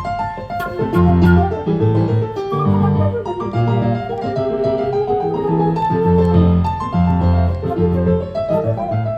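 Live instrumental Colombian Andean music played by a small ensemble, a rumba criolla: quick melodic notes over a moving bass line.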